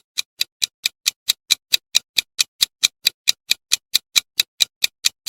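Clock-style ticking of a quiz countdown timer sound effect: sharp, evenly spaced ticks about four to five times a second.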